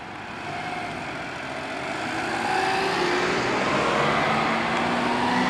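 A train approaching a level crossing, its running noise growing louder and staying loud from about two and a half seconds in.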